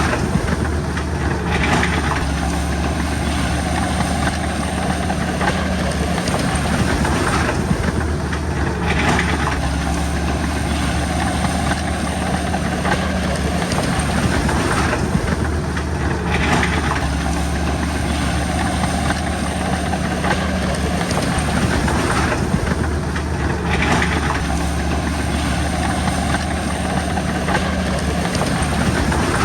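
Heavy diesel engine of a Komatsu crawler bulldozer running steadily at work, a constant low drone whose upper sound swells and falls back about every seven to eight seconds.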